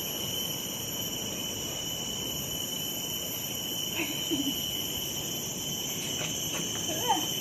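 Steady high-pitched drone of forest insects, with a few faint short chirps about four seconds in and near the end.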